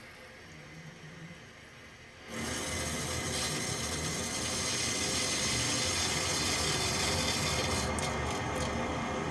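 Water rushing through the sprinkler system's supply pipes as the main valve is opened, starting suddenly about two seconds in and running steadily. The flow noise comes from water running out of an outdoor spigot left open after the winter blowout.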